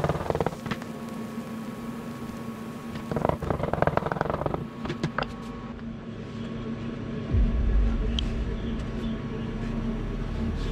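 Workshop machinery running with a steady hum. Short bursts of rapid rattling come near the start and again about three seconds in, and a deeper low rumble starts about seven seconds in.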